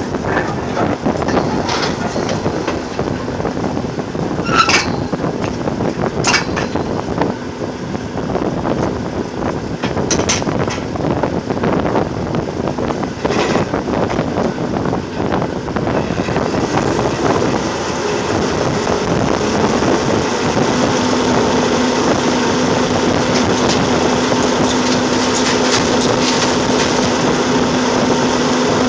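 Drilling rig floor machinery running loudly, with several sharp metal clanks in the first half. In the second half a steady droning engine tone takes over.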